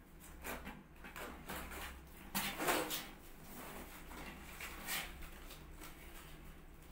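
A kitten's claws scratching and scrabbling on a cardboard box as it climbs the side, in a few short scratchy bursts, the longest about two and a half seconds in.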